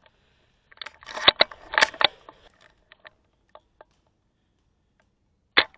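Scoped airsoft sniper rifle being handled: a quick series of sharp mechanical clicks and knocks about a second in, a few faint ticks, then one sharp shot near the end.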